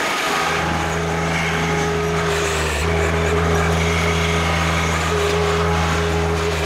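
Compact tractor engine running steadily under load while its front loader digs out a tree stump, with a higher whine on top that comes and goes.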